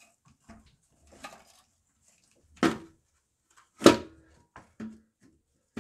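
Intake manifold being set down and fitted onto a Mercedes V6 engine: light clatter, then two sharp knocks about a second apart near the middle, the second loudest with a brief ring.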